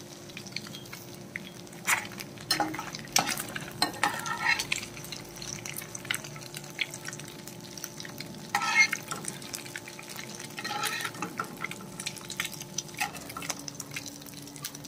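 Metal slotted spatula scraping and tapping in an aluminium frying pan as fried egg is lifted out onto a glass plate, with scattered sharp clicks and scrapes over a light steady sizzle of hot oil.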